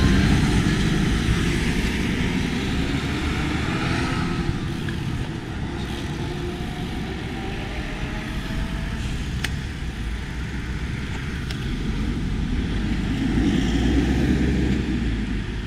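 Road traffic at a busy junction: a steady rumble of passing cars and wind on the microphone, with a small lorry driving past, louder, near the end. A single click about halfway through.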